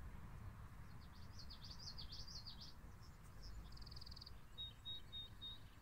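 Faint bird song: a run of quick high chirping phrases, then a short buzzy trill, then four short even whistled notes near the end, over a faint low rumble.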